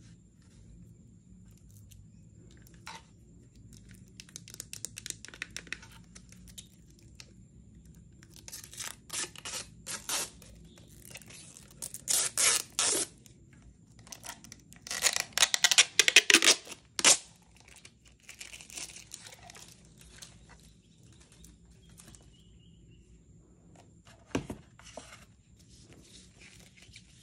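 Plastic packaging film being crinkled, peeled and torn by hand while a set-top box is unwrapped, in scattered short rips, loudest in two spells around the middle. Quieter paper and packaging rustles follow, with one sharp click near the end.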